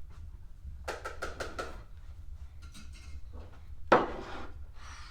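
Plates and cutlery being handled and set down on a table: a quick run of light clinks about a second in, then one sharper knock a little before four seconds.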